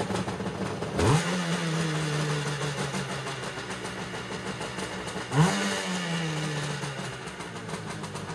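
Kawasaki JS550SX jet ski's two-stroke twin with a Coffman's half-pipe exhaust, running after a fresh start and revved twice, each rev rising quickly and then falling slowly back toward idle.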